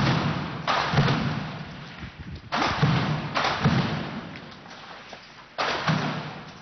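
Weapon fire in street fighting: about five loud bangs, each sudden and trailing off in a long echo over a second or two.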